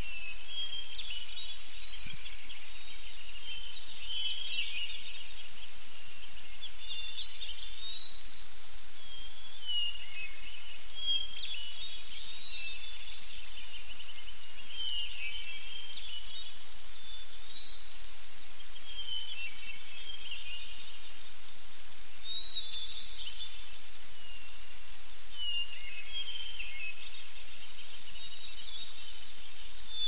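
Several songbirds singing and calling over a steady high hiss, with a run of short, high, evenly spaced chirps through the first few seconds. The loudest calls come about one to two seconds in.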